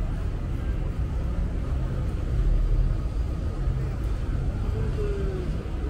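Busy street ambience: a steady low rumble, with a faint voice of a passer-by about five seconds in.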